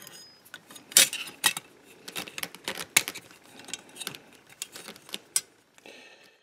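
A sheet-metal wiring plate and its cable connector and nut being handled: irregular metallic clicks and clinks, with the sharpest knocks about one and three seconds in.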